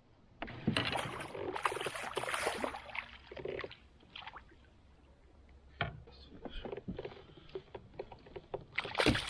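A hooked smallmouth bass splashing and thrashing at the surface beside a kayak as it is led to the net, then scattered knocks of the landing net and gear against the kayak. Another loud burst of splashing and flopping comes near the end as the netted fish is lifted aboard.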